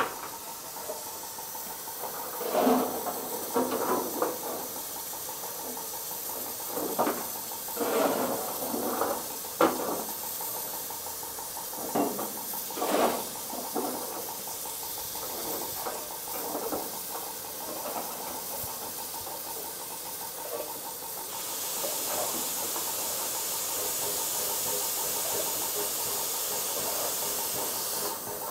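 USATC S160 steam locomotive No. 5197 standing with a steady hiss of steam, which grows louder about three-quarters of the way through. Irregular short knocks and clatters come and go in the first half.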